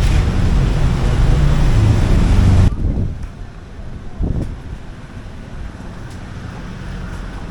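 Loud, rough rumble of wind on the microphone that cuts off abruptly about two and a half seconds in, leaving a much quieter outdoor background with one short swell of noise.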